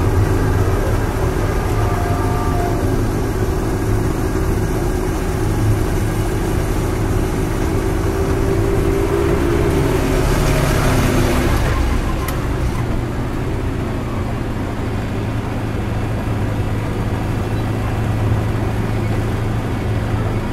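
Casey Jr. Circus Train ride running along its track: a steady low drone from the moving train. There is a brief swell of hissing noise about ten seconds in, as it passes under a stone arch.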